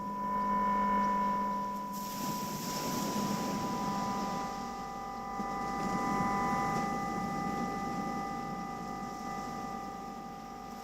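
Battery-powered synthesizer holding sustained, bell-like drone tones. A high tone with its overtones fades out about two-thirds of the way through while lower and higher tones carry on. A rushing hiss swells about two seconds in and stays under the tones.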